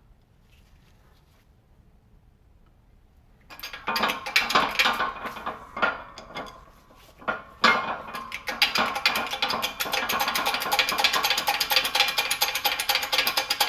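Pneumatic impact wrench hammering, pulling the new front wheel bearing and hub into the steering knuckle. It starts about three seconds in, pauses briefly, then runs on as a steady rapid rattle.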